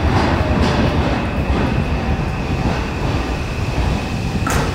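Seibu 001 series Laview electric train rolling slowly into the platform: a low rumble of wheels with a few clicks over rail joints, and a steady high squeal setting in after about a second and a half as it slows. A single sharp clack comes near the end.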